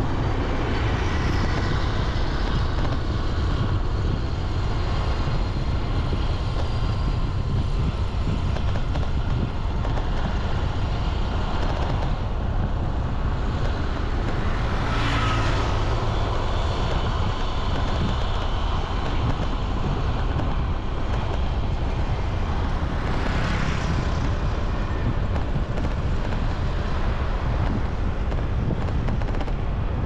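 Steady road traffic and vehicle noise with a heavy low rumble. A brief louder swell passes about halfway through and another a little later.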